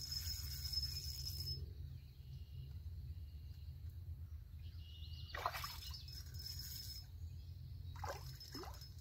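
Water splashing as a hooked bluegill is played and brought in at the surface: a brief splash about midway and a couple of short splashes near the end, over a steady low rumble.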